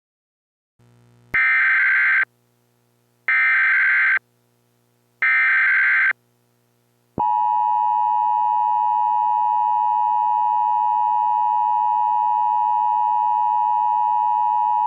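Emergency Alert System header: three short bursts of SAME digital data, about a second apart, followed by the EAS attention signal, a steady two-tone 853 and 960 Hz tone held for about eight seconds.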